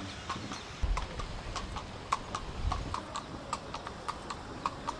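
Hooves of a carriage horse clip-clopping in a steady rhythm, about three strikes a second. There is a brief low rumble about a second in and again near three seconds.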